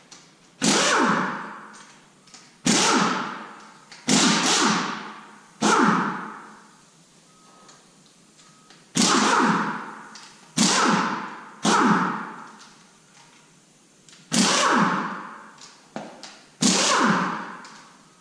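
Impact wrench backing out the rocker arm bolts on a 6.0 L LS V8. Nine short bursts, each starting sharply and dying away over about a second.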